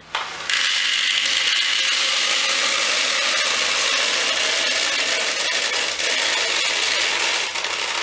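Plastic airsoft BBs pouring from a bag into a plastic speed loader: a steady, dense rattling hiss of countless tiny pellet clicks, starting about half a second in.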